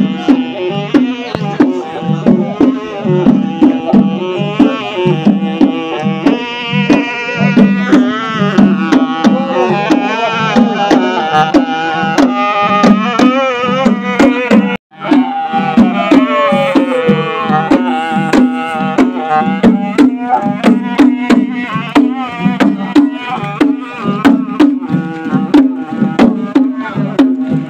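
A Dimasa muri, a long wooden double-reed pipe, plays a wavering, bending melody over fast, steady beats of hand drums, live folk-dance music. The sound cuts out briefly about halfway through.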